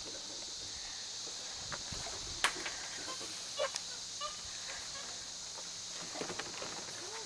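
Steady high buzz of tropical insects, with one sharp click about two and a half seconds in and a few short chirping animal calls near the middle.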